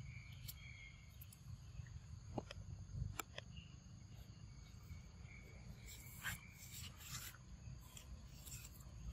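Forest ambience: a steady high insect drone, with a few faint clicks and taps about two and three seconds in and again past the sixth second.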